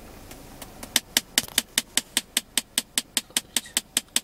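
Rapid, even knocking from the climate-control system of a Nissan Primera P12, about five knocks a second, setting in about a second in. The knock comes with the air conditioning on and only in the face-level airflow mode; it stops when airflow to the feet is selected.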